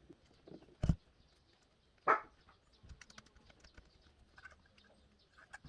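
Scattered light clicks and taps as a small charging connector and its nut are handled and fitted into a hole in a keg, with a dull knock about a second in and a sharper tap about two seconds in.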